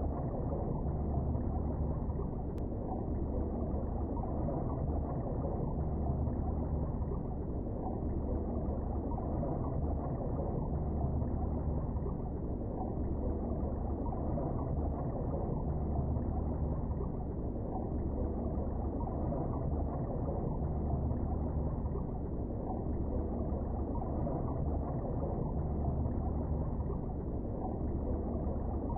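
Steady, muffled rush of river current heard underwater, with a low rumble that swells gently every second or two.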